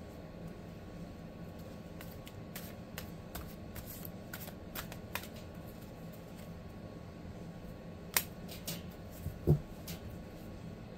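Tarot cards being shuffled and handled: scattered light card clicks and snaps, a sharper snap about eight seconds in and a thump about a second later.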